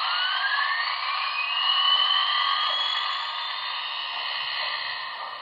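Steam sound from the Broadway Limited Paragon 4 decoder played through the HO model locomotive's small speaker: a steady hiss with a whine that rises in pitch over about three seconds and then holds. It is the locomotive's turbo-generator spinning up as the headlight is switched on.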